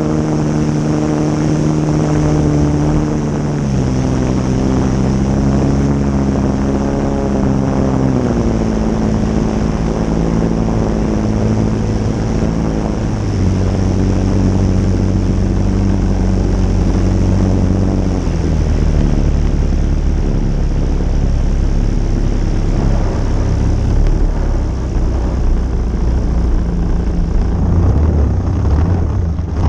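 Onboard sound of a 103-inch Laser RC model aircraft's GP123 engine and propeller, throttled back in steps as it comes in to land and settling to a low idle on the ground, with a steady hiss of airflow over the airframe.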